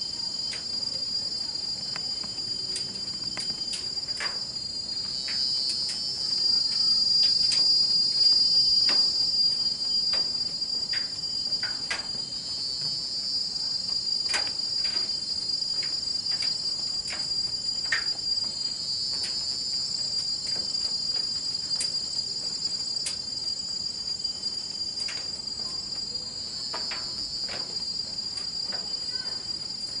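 Rainforest insect chorus: a steady high-pitched buzz, with a louder pulsing swell in the same pitch about every six to seven seconds. Scattered light clicks run through it.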